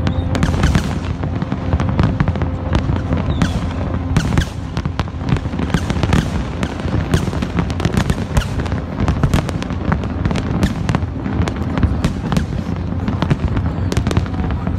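Fireworks display going off: a dense, continuous run of bangs and crackling pops, several a second, over a low rumble of distant bursts.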